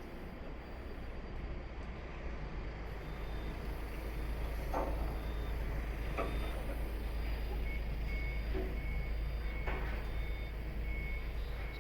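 A construction vehicle's reversing alarm sounding short, evenly spaced beeps over the steady low rumble of heavy machinery, which grows louder partway through. A few sharp metal clanks come from the dismantling work.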